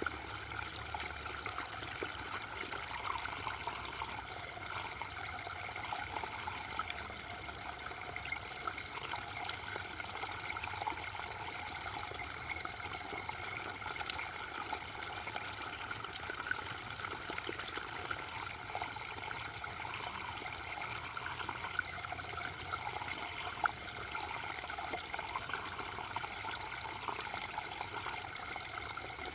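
Small waterfall: water falling and splashing, a steady, unbroken trickling rush.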